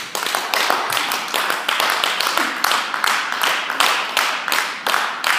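A group of people clapping together in a steady rhythm, about three claps a second, each clap ringing briefly in the hall.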